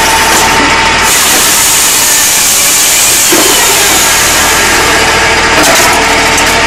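Tajfun RCA 400 Joy firewood saw-splitter running with a steady machine hum. About a second in, its circular saw blade starts cutting through a log, a loud hiss that lasts about four and a half seconds before the machine drops back to its running hum.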